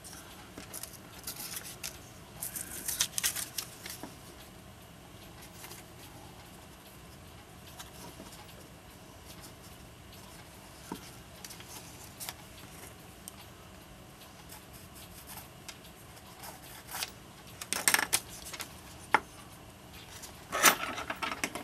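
Small tools and parts being handled on a workbench during clock repair: scattered light clicks, clinks and scrapes, with louder clusters of handling about three seconds in and twice near the end.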